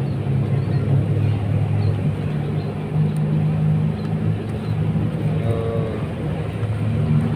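A steady low motor drone with an even, unchanging pitch.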